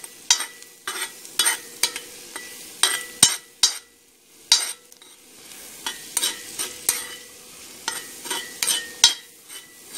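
Metal spoon scraping and clinking against the inside of a cast iron pot, stirring onions that sizzle in the pan. The strokes come about twice a second, with a short pause a little before four seconds in.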